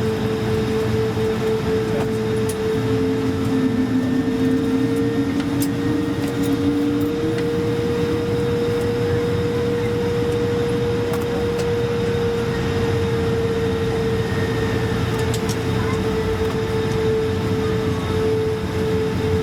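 Airbus A220-300 cabin noise: a steady hum and whir with a sustained tone, and a lower wavering, gliding tone in the first third, the A220's characteristic 'whale noise'.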